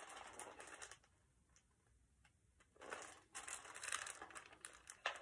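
Faint rustling of a picture book being handled, its pages brushing as it is shown and turned back. There is near silence for a couple of seconds in the middle.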